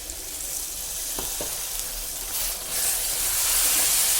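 Masala paste sizzling in hot oil in a pan just after a little water was added, the hiss growing louder about two and a half seconds in.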